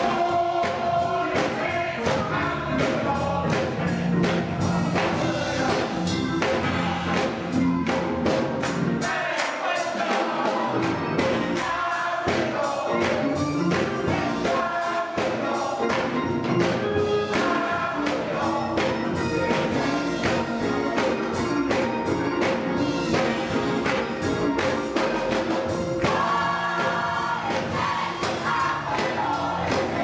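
Gospel choir singing full-voiced with keyboard accompaniment and a steady beat; the bass drops out briefly about ten seconds in.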